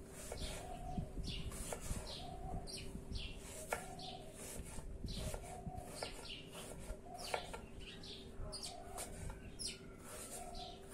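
Small birds chirping over and over in short falling notes, with occasional sharp taps of a kitchen knife on a wooden cutting board as an apple is diced, over a faint steady hum.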